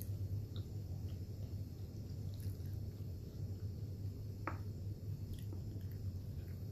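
Steady low hum with light handling sounds of a white chocolate Kit Kat bar on a wooden board: a few faint clicks and one sharper click about four and a half seconds in.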